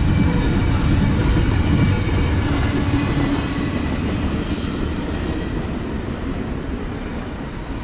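Double-stack intermodal container cars rolling past on the rails, a steady rumble and rattle of wheels that fades as the end of the train passes and moves off.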